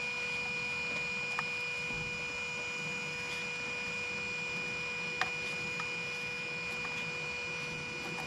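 Steady electrical whine and hum, with a few faint light clicks.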